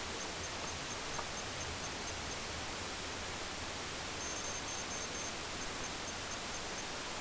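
Steady even hiss of recording noise with no speech, and a faint high ticking about five times a second running through it, with a short break near the middle.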